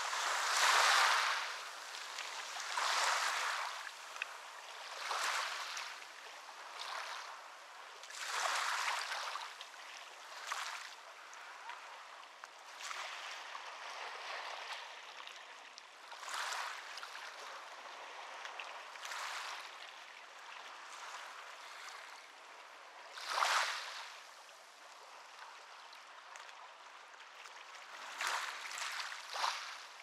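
Small ocean waves breaking and washing up a beach. The hiss swells and fades every two to three seconds, with one sharper, louder wave about twenty-three seconds in.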